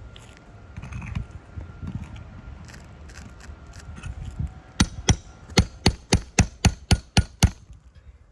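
Some scraping and light knocking, then a quick run of about ten sharp hammer strikes, roughly four a second, from a shingle hammer working a nail or tool under an asphalt shingle.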